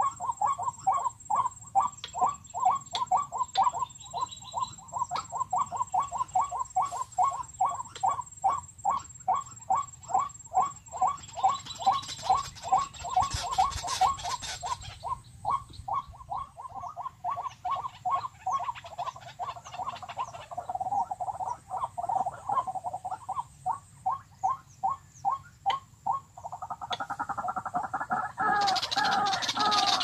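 Recorded white-breasted waterhen calls played as a lure through a bird-caller speaker: one call note repeated very regularly, two or three a second. Near the end a louder, fuller bout of calling takes over.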